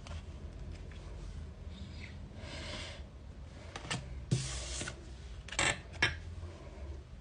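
Hands handling album packaging: rubbing and rustling, a knock with a brief rustle about four seconds in, then two short sharp scrapes.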